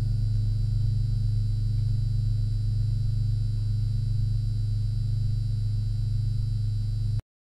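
Background music: a single low note held steadily, cutting off abruptly near the end.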